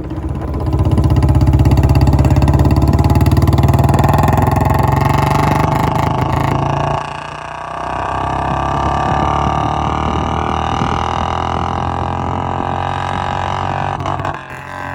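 Royal Enfield Bullet's single-cylinder engine with a long-bottle exhaust, loud, pulling hard as the bike rides off. The pitch climbs, then drops sharply about seven seconds in at a gear change, then pulls steadily again.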